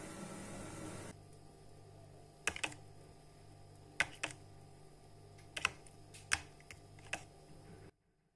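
Metal spoon clicking against the sides of a plastic tub while stirring thick aloe vera gel: a handful of sharp clicks, several in quick pairs, over a low hum. A steady hiss stops about a second in, and the sound cuts off suddenly near the end.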